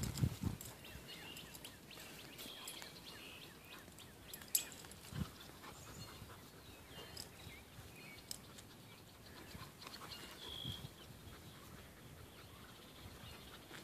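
Faint outdoor ambience with scattered short bird chirps, a few soft thumps and one sharp click about four and a half seconds in.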